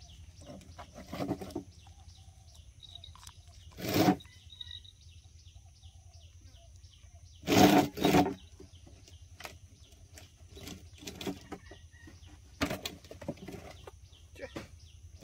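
Outdoor background of steady high chirping with fast faint ticking, broken by a few loud short rustling noises, the loudest a pair about eight seconds in.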